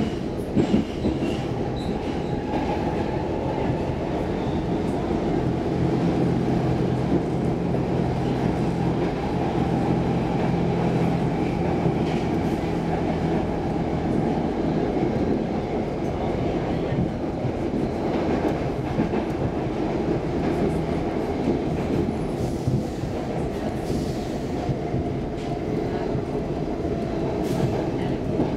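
Stockholm Metro C14 car running through a tunnel, heard from inside the passenger car: a steady rumble of wheels on rail. A low hum sits under it through the middle stretch, and a few sharp clicks come near the start and towards the end.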